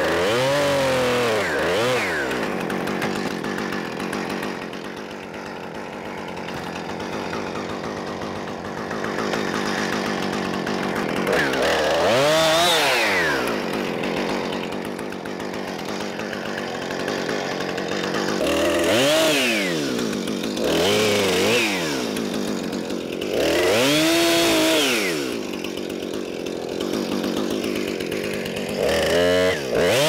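Husqvarna Rancher 455 two-stroke chainsaw cutting tree limbs, its engine revving up sharply and dropping back several times, with a lower steady running in between.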